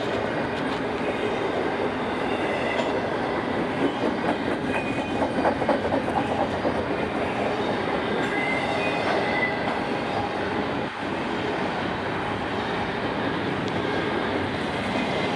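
Doublestack intermodal well cars rolling past: a steady rumble and clatter of steel wheels on the rails, with a few faint, brief wheel squeals partway through.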